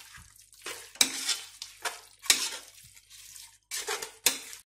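Spatula stirring mutton and masala in a pressure cooker pot: a few scraping strokes, each starting with a sharp knock of the spatula against the pot's metal side, and the sound stops abruptly near the end.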